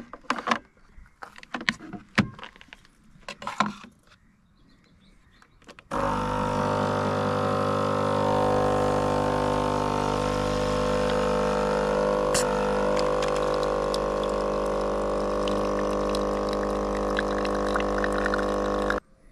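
Electric espresso machine brewing a strong espresso. A few clicks and knocks come first as it is set up, then about six seconds in its pump starts a loud, steady buzz with coffee running, and it stops shortly before the end.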